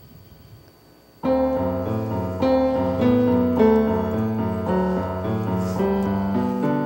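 Piano-like keyboard music, the instrumental intro of a song, starts suddenly about a second in after a short quiet pause, with chords over a bass line.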